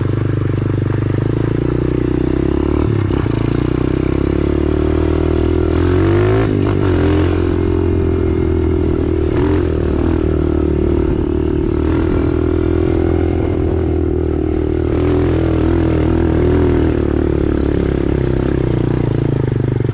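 Small dirt bike's engine running under way up a rough dirt track, its note rising and falling with the throttle, with a few brief rattles over the bumps.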